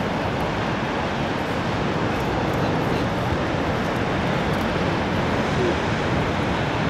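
Heavy ocean surf breaking, a steady rushing noise of whitewater and wind with no change in level.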